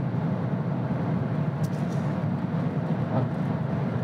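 Steady road and engine noise inside the cabin of a moving automatic car: an even, low drone.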